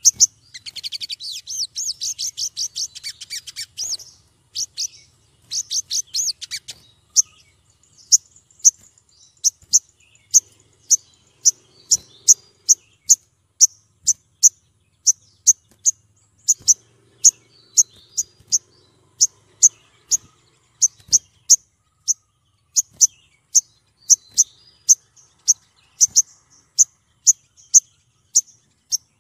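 Female olive-backed sunbird calling to attract a male: a rapid, high chattering trill for the first few seconds and again briefly, then a long run of single sharp high chirps, one or two a second.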